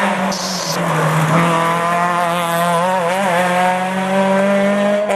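Rally car engine at high revs as the car passes and pulls away, its note rising, with a brief waver about three seconds in. A short tyre squeal sounds under a second in.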